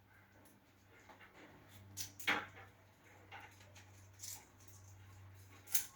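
Small clicks and rustles of Cat6 cable wires and plastic balun connectors being handled and arranged, the loudest a couple of seconds in and again near the end, over a faint steady low hum.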